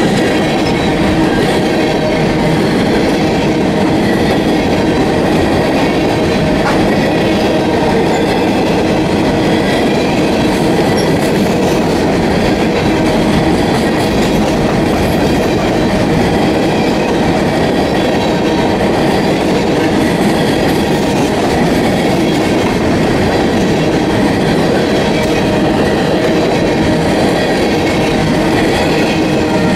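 Loaded freight train of coal hopper cars rolling past close by: a steady rumble and clickety-clack of steel wheels on the rails, with the cars rattling.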